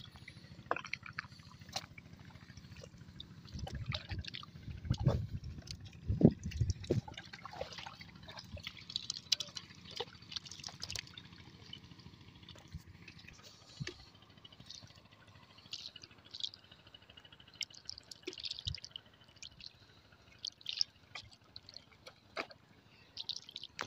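Shallow water splashing and dripping in small, irregular bursts, with a few low bumps about four to seven seconds in.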